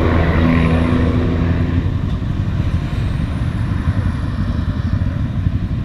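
Vehicle engine running: a steady low hum for about the first two seconds, then a rough low rumble.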